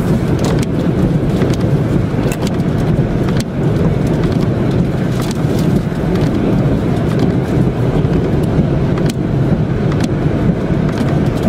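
A car driving, its steady road and engine noise running low and loud, with a few scattered light clicks.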